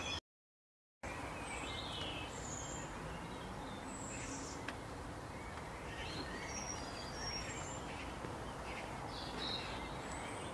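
Several birds chirping in short, scattered calls over a steady outdoor background hiss. The sound cuts out completely for just under a second near the start.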